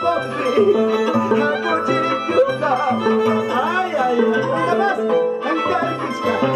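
Live Andean folk music: a violin playing the melody over an Andean harp's plucked chords and stepping bass. A man's voice comes through a microphone and PA over the instruments.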